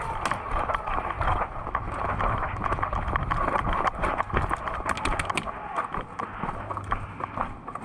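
Quick running footsteps mixed with many sharp clicks and knocks.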